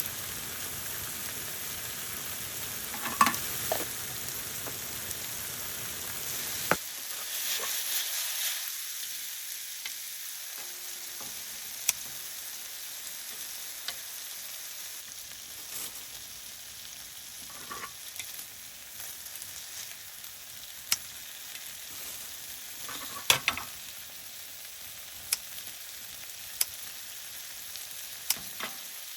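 Food sizzling as it fries in a pan, with scattered clicks and knocks of utensils against the pan. A low background rumble cuts off suddenly about seven seconds in.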